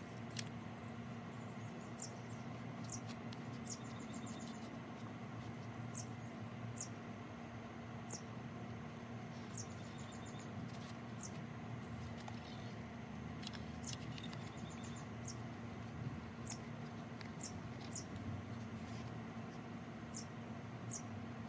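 Outdoor ambience: a steady, high insect trill with short, high chirps every second or so, over a low, steady hum.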